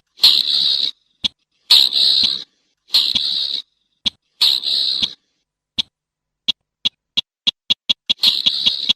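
Slaty-breasted rail calling: four harsh, grating calls under a second long, about a second apart, then a run of short sharp ticking notes that speeds up into another harsh call near the end.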